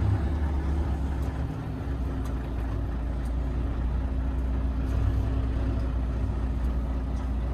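Volvo FH truck's diesel engine running steadily, heard from inside the cab as a low drone while the truck creeps forward in a queue. The low engine note drops briefly about a second and a half in, then settles back.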